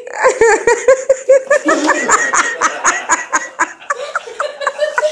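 People laughing hard in quick, repeated bursts.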